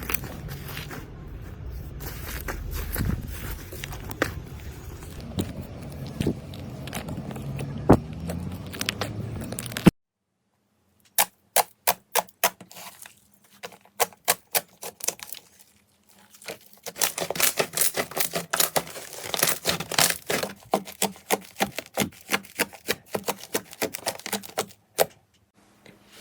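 Slime being handled up close: about ten seconds of continuous squishing with a low rumble and occasional clicks, then, after a sudden cut, single sharp clicking pops that build into a dense run of crackles as the slime is pressed and poked.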